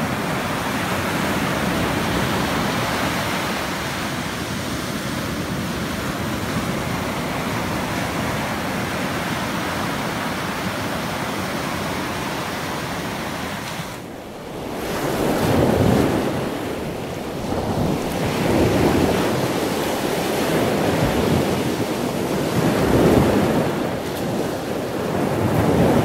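Ocean surf on a beach: a steady wash of breaking waves, then, after a brief dip about halfway through, waves swelling and breaking every few seconds.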